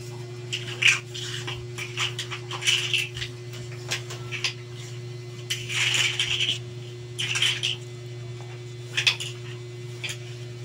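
A hand pressing and turning pork belly slices in a powdery coating on a plate, making irregular soft scraping and patting sounds with a few light clicks, over a steady low hum.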